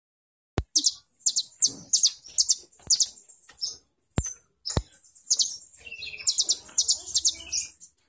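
Caged olive-backed sunbird (kolibri ninja) singing: quick, high-pitched chirps in short repeated bursts, several a second. Three sharp clicks cut in, the first about half a second in and two more a little past the middle.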